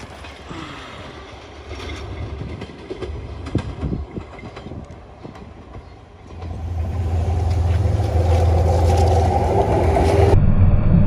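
Diesel locomotive approaching along the track. Its engine's steady low drone swells in about six seconds in and keeps growing louder. Before that there is only irregular wind and handling noise with a few knocks, and near the end the sound jumps to a closer recording of the locomotive's engine running.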